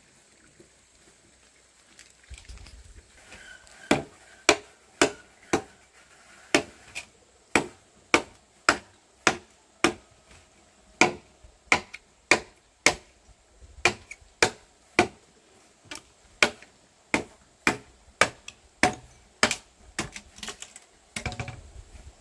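Wood being chopped with a blade, cutting a pole in two: a steady series of sharp chopping strikes, about two a second. The strikes begin a few seconds in and stop near the end.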